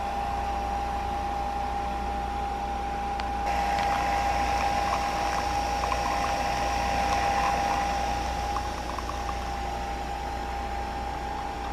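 Nespresso Vertuo coffee machine brewing: a steady motor hum with one high whine as it spins the capsule, over a hiss of coffee streaming into a tumbler over ice. A few light ticks come in the middle.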